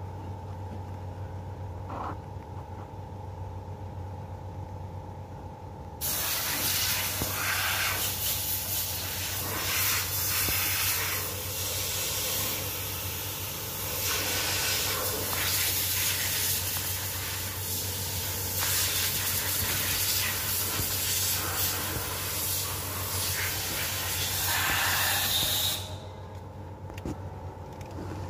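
A steady hiss of noise, with a low steady hum under it. The hiss starts abruptly about six seconds in and cuts off near the end, leaving only the muffled hum.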